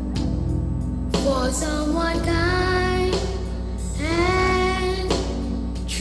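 A song: a singer holding long notes in short phrases over a band accompaniment with a steady bass.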